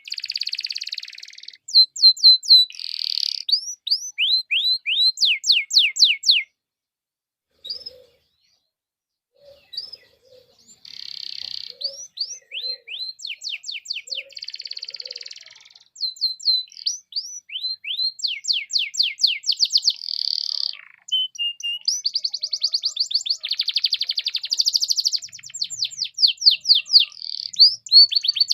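Domestic canary singing in fast runs of rapidly repeated sweeping high notes and trills, with buzzy rolling phrases between them; the song breaks off for about three seconds near the end of the first third, then resumes.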